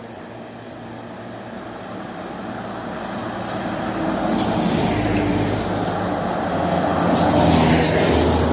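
Heavy diesel truck approaching along the road and coming close past. The engine's low steady note and the tyre noise build up over several seconds and are loudest near the end.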